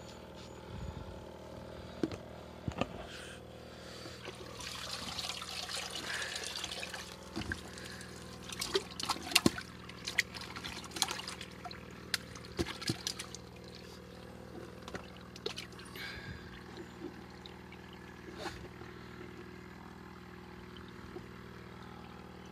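Water trickling and splashing in a bucket as a mesh eel keep-net holding live wild eels is lifted and handled. A run of sharp splashes and knocks comes in the middle, over a steady low hum.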